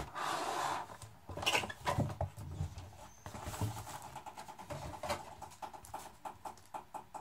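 Headphone packaging being handled: the clear plastic tray and cardboard box rustle briefly, then a run of light clicks and taps.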